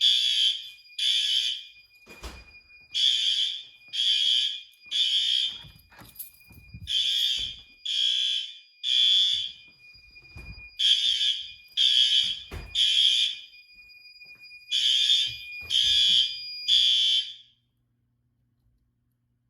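Building fire alarm horns sounding the temporal-three evacuation pattern: three blasts about a second apart, a pause, then the group repeats, over a thin steady high tone. The alarm goes silent near the end.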